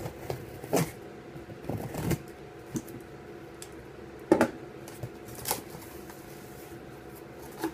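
Hands opening a mailed package: irregular rustling, crinkling and clicking of the packaging being handled, with the sharpest click about four seconds in. A faint steady hum runs underneath.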